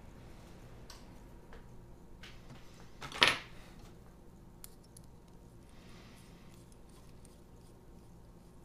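Small metal frame hardware (screws and aluminium standoffs) clicking and clinking as it is handled against carbon-fibre plates. There are a few light clicks, and one much louder metallic clatter about three seconds in.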